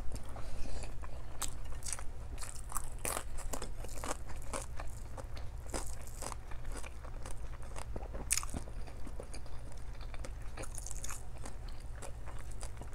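Close-up chewing and mouth smacks of someone eating rice and mackerel by hand, as a string of short irregular wet clicks. A steady low hum runs underneath.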